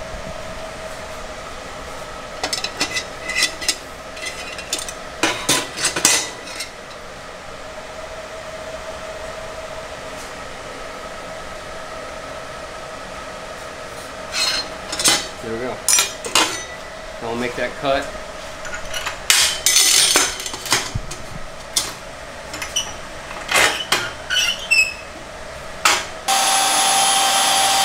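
Light metal clinks and knocks of stainless steel exhaust tubing and hand tools being handled and set in a vise. About a second and a half before the end a power tool starts running with a steady whine.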